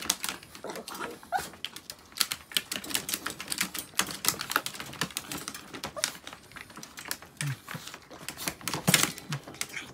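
Irregular clicking and rattling of a wire dog crate and its plastic fittings as Chihuahuas move and paw inside and a hand handles the crate.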